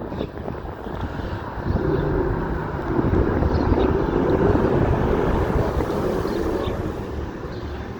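Street traffic: a passing vehicle's noise swells about two seconds in and eases off near the end.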